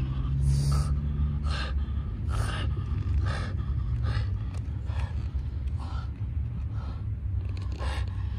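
French bulldog breathing hard, a noisy breath about once a second, over a steady low rumble.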